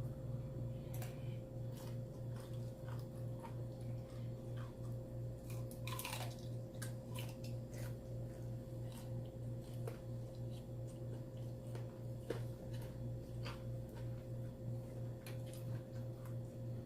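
Close-miked chewing and wet mouth sounds of someone eating fried chicken: scattered smacks and clicks, one larger wet smack about six seconds in, over a steady, pulsing low hum.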